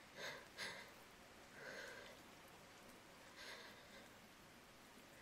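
A woman's quiet, close-miked breathing: two quick sniffs just after the start, then slow soft breaths about every two seconds over a faint steady hiss.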